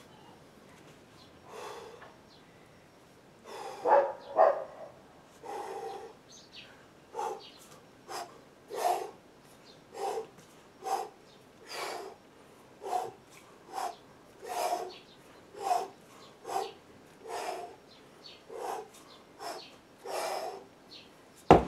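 A man's forceful breaths, about one a second, in time with the swings of a kettlebell figure-eight exercise. Just before the end a single loud thud as the kettlebell is set down on the ground.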